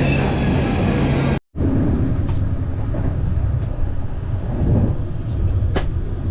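Rail vehicle running, with several high steady squealing tones over a low rumble; the sound cuts out abruptly about a second and a half in, then resumes as a steady low rumble with a single sharp click near the end.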